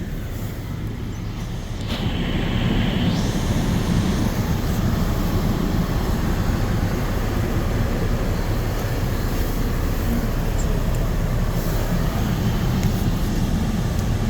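Car in motion heard from inside the cabin: a steady low rumble of tyre and engine noise that gets louder about two seconds in.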